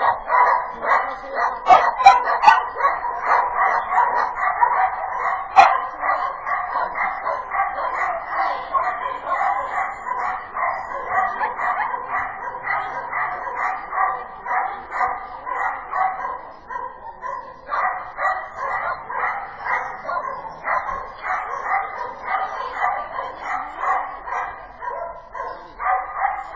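A dog barking over and over in quick succession, several barks a second, with a short break about two-thirds of the way through. Two sharp knocks, the loudest sounds, come about two and five and a half seconds in.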